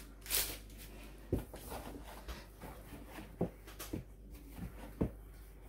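A few light, separate knocks and clicks as a plastic dumpling press is handled on a steel worktop, over a faint steady hum.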